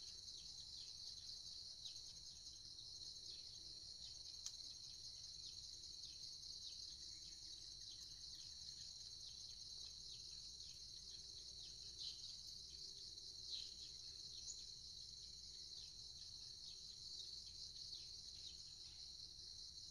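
Faint, steady high-pitched insect chorus with a fast pulsing trill, with scattered short falling bird chirps over it.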